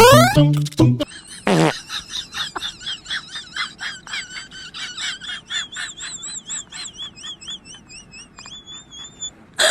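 A long series of short, high, wavering chirps from a small animal or bird, about three a second, ending in a longer warbled call. A cartoon boing sound effect plays in the first second or so.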